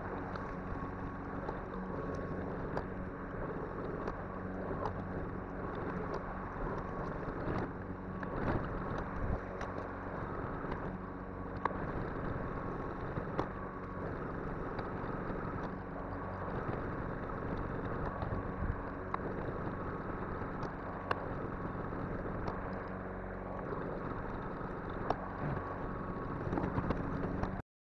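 Atlas 80V battery-powered self-propelled lawn mower running steadily while cutting grass: a constant electric motor and blade hum with scattered sharp ticks. It cuts off abruptly near the end.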